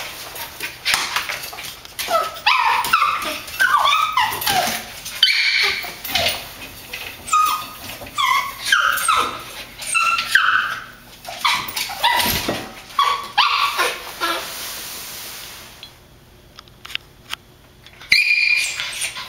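Puppy whining and yipping over and over in short, high cries that slide up and down, with scattered clicks and knocks in between. The cries die down for a few seconds near the end, then one loud cry follows.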